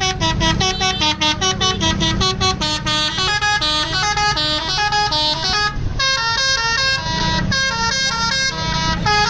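A bus's musical 'telolet' horn (basuri) playing a fast tune of short, stepped notes over the running engine, with a brief break about six seconds in.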